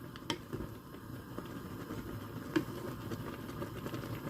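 Basmati rice boiling in a pot of water, a faint steady bubbling, with a couple of light clicks. The rice is still parboiling and not yet done.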